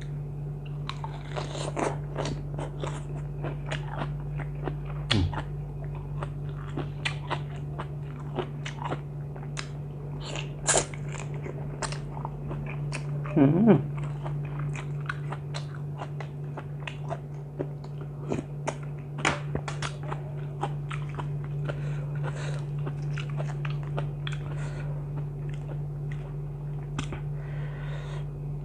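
Close-up mouth sounds of a person chewing and biting crisp raw vegetables with spicy seafood salad, many small crunches throughout, over a steady low hum.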